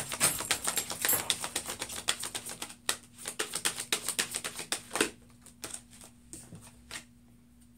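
A deck of tarot cards being shuffled in the hands: a quick run of crisp card flicks and clicks that thins out about five seconds in and then stops.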